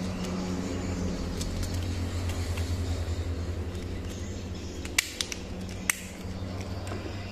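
Small plastic toy parts clicking as a toy engine body is pressed onto its plastic chassis: three sharp clicks, two close together about five seconds in and one a moment later, over a steady low hum.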